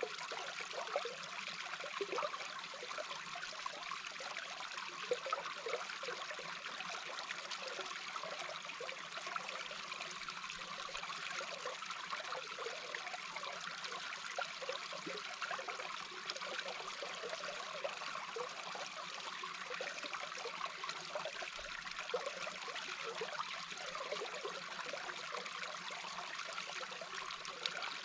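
Small babbling brook heard underwater: a steady rush of flowing water with many scattered short bubbling gurgles.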